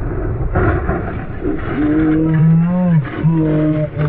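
Two long yells from a person at the moment of a motorcycle crash: a first of about a second, starting about two seconds in, then a shorter second yell, each falling in pitch as it ends. A steady motorcycle engine and road noise run underneath.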